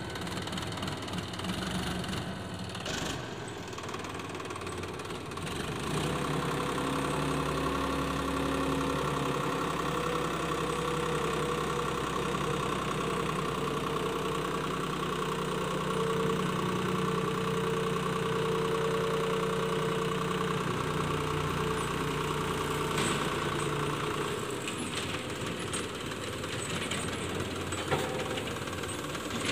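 Sonalika DI 35 tractor's diesel engine running under load as its hydraulics tip a loaded soil trailer. The engine note picks up a few seconds in, holds steady while the trailer bed rises, and settles back a few seconds before the end. A single sharp knock comes near the end.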